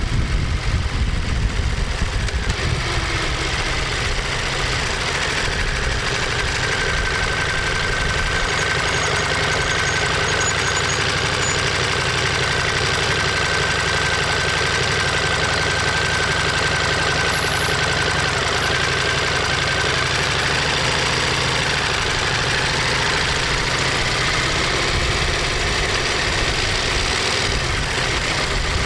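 Ducati Monster 1200S's L-twin engine running steadily, a little louder and rougher for the first couple of seconds before settling into an even note.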